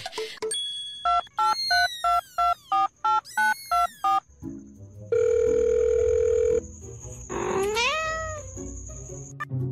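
Electronic sound effects: a rapid run of short beeps, about four a second, each with a falling sweep; then a held buzzy tone for about a second and a half; and near the end a rising glide.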